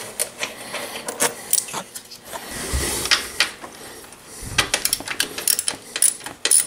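Small metal clicks and rattles of hand tools working a motorcycle's 10 mm radiator-shroud bolts loose, irregular at first, then a quicker run of clicks in the second half.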